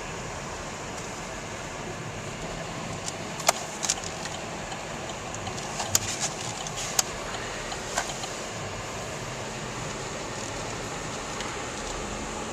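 Steady road and cabin noise inside a moving car, with a few sharp, irregular clicks in the middle few seconds.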